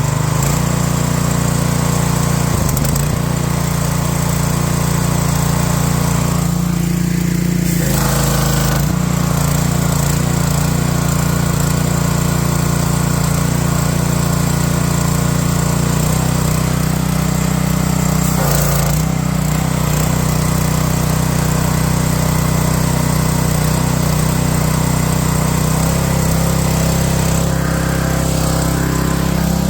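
Small gasoline engine of a pressure washer running steadily after a cold start, at the fast throttle setting. Its pitch shifts slightly a few times while the choke is eased off.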